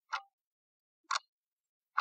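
Countdown timer's clock-tick sound effect: sharp ticks, one a second, two of them here.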